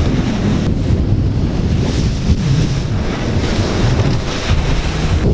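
Heavy wind buffeting the microphone over the rush and splash of spray off the hull of a bay boat running fast through choppy water.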